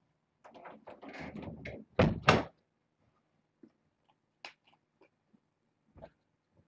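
A door being opened and shut: a rattle at the handle, then two heavy thuds about two seconds in, one right after the other. Faint scattered taps follow.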